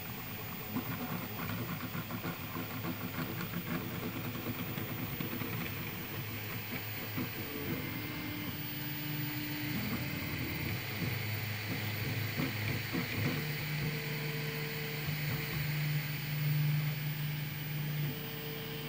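Prusa i3 3D printer's stepper motors whining as the print head moves, held tones that jump to a new pitch with each change of move.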